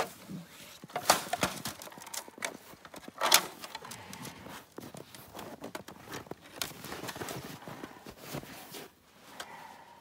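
Irregular knocks, clicks and rustling of trapping gear, a plastic crate and bagged bait being handled in snow, with a sharp knock at the start and another a little over three seconds in.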